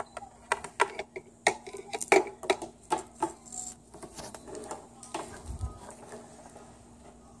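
Small plastic toy figures being handled and moved on a tabletop: a quick irregular run of light clicks and taps, with a dull low thump about five and a half seconds in.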